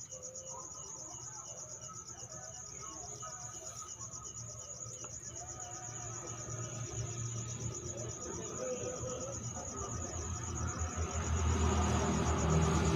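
Crickets chirping in a fast, even, high-pitched pulse that never lets up. A low rumble swells near the end.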